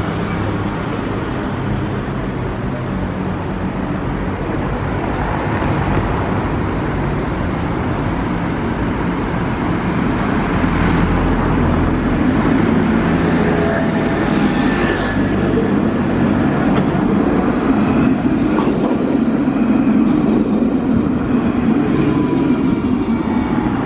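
Street traffic with motor scooters passing, then a tram drawing near and running past close by, its low rumble building over the last several seconds.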